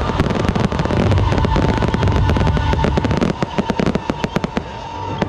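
Aerial fireworks going off: a dense run of crackling bangs that thins to scattered separate pops about three seconds in.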